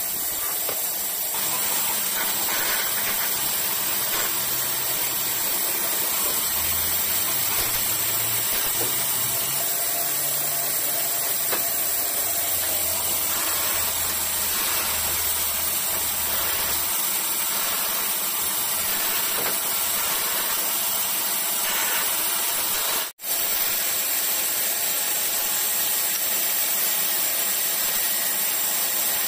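Band saw running and cutting short pieces from small strips of wood, under a steady, hissing noise with a brief dropout about two-thirds of the way through.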